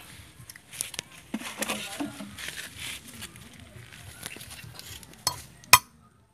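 Light metal clinks and taps as a stainless steel wire is worked in a hole in a steel bar, being bent into a handmade fishing hook. The taps are scattered, and one sharp clink near the end is the loudest.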